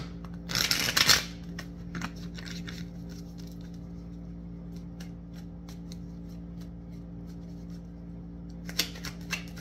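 Tarot deck being shuffled by hand: a riffle shuffle gives a dense whirring burst about half a second to a second in, then a run of faint card clicks as the cards are shuffled hand over hand, with a few louder clicks near the end.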